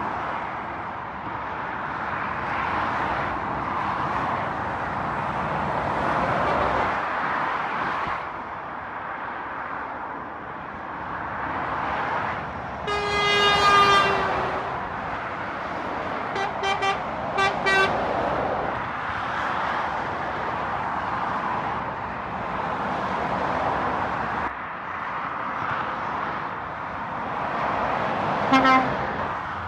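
Motorway traffic passing steadily, its tyre and engine noise swelling and fading as vehicles go by. About 13 seconds in a horn gives one long blast, then several quick short toots a few seconds later, and one more short toot near the end.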